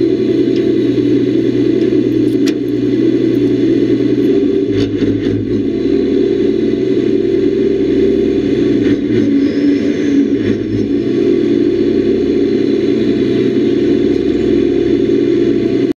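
Drift gillnet boat under way: its engine running steadily with a low hum under a loud rushing of wind and water, which cuts off suddenly at the end.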